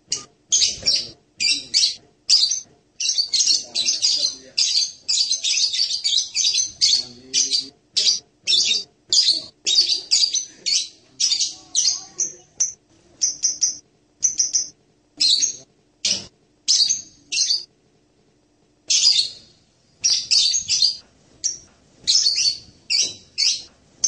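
Blue-crowned hanging parrot (serindit) giving rapid strings of short, high-pitched chirps, several a second, with one pause of about a second and a half about three-quarters of the way through.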